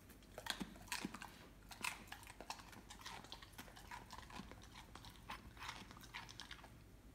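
Weimaraner chewing a piece of raw vegetable, with irregular crunches and bites several times a second that stop about six and a half seconds in.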